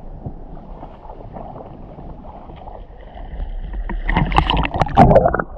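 Calm sea water lapping and sloshing around a camera held at the surface, with louder splashing over the last second and a half.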